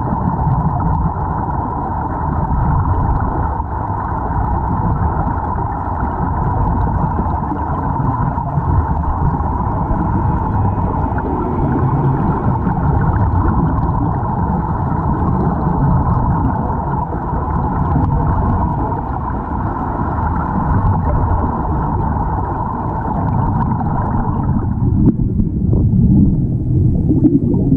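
Muffled underwater rumble and hiss picked up by a submerged camera, with a steady mid-pitched hiss that drops away about 25 seconds in, after which the sound turns more irregular as the camera comes up against an air-fed diving helmet.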